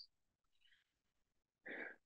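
Near silence, then a man's short intake of breath near the end.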